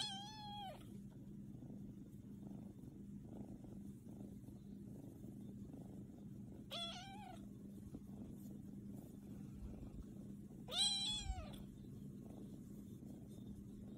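Tabby kitten meowing three times, short rising-and-falling meows, the last the loudest, over a steady low purr while it is being stroked.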